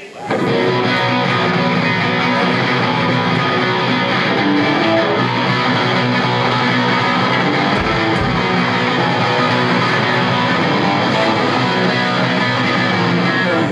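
Punk band playing live: loud, guitar-driven rock. It kicks in abruptly just after the start and breaks off abruptly at the end.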